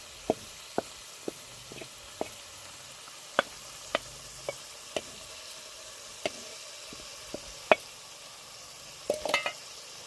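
Wooden spoon knocking and scraping on a metal bowl as leafy greens are emptied into an aluminium saucepan: a dozen or so sharp, separate knocks, with a quick cluster near the end. Under them, a steady hiss from the pot simmering on a charcoal stove.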